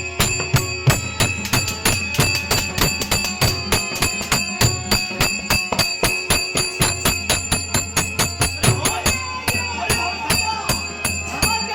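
Marathi devotional bhajan music: a pakhwaj drum and small metal hand cymbals beat a fast, steady rhythm over steady held tones.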